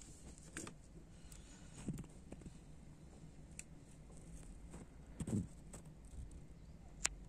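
Faint steady low hum with a few soft clicks and dull knocks scattered through it; the loudest knock comes about five seconds in, and a sharp click comes near the end.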